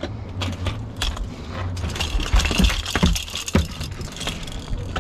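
Irregular metallic clicks, rattles and scrapes of pliers and lure hooks against a boat deck as the hooks are worked out of a small trevally, with a few dull thumps about halfway through, over a steady low rumble.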